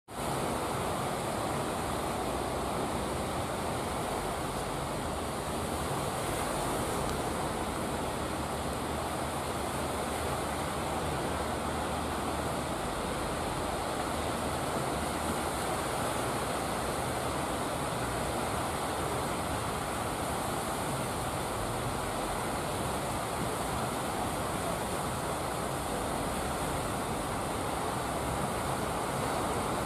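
Steady sound of surf breaking on a beach, with the low running of fishing boats' engines underneath as the boats come in through the waves.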